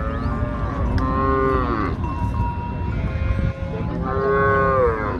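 Cattle mooing: two long calls, each rising and falling in pitch, one at the start and another near the end, over market background noise.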